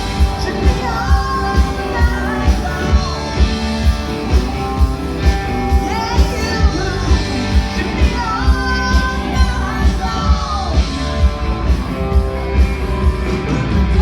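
Music: a song with a singing voice over a steady, heavy beat of about two beats a second.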